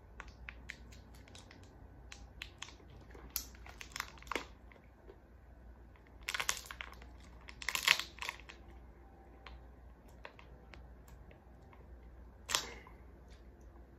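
A plastic candy wrapper crinkling and rustling as it is handled, in short bursts, the loudest about eight seconds in, with small clicks in between.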